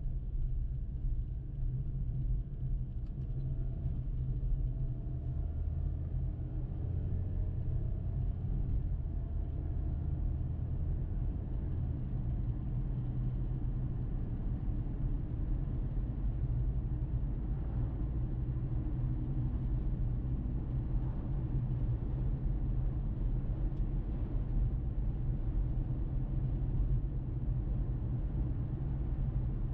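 Car driving on the road: a steady low rumble of tyres and engine, with a faint engine tone rising and falling during the first several seconds.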